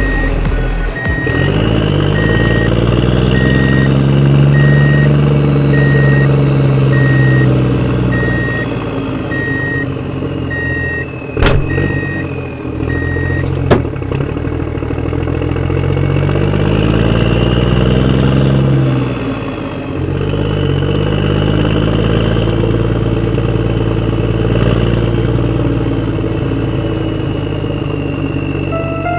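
Radio-controlled toy construction machines working, their motors and engine-sound effects rising and falling in pitch, with a repeating reversing beep through the first half. Two sharp clicks come around the middle.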